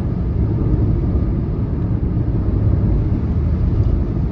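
Steady low rumble of a car driving along at road speed: tyre and engine noise with no break or change.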